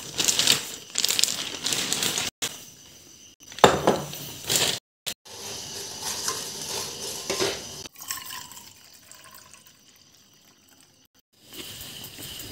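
Several short clips cut together with abrupt breaks: kitchen handling sounds, with a plastic bag rustling and then a spoon stirring a dark liquid bubbling in a steel pot with clinks against the metal. Near the end comes a steady rush of bicycle riding noise.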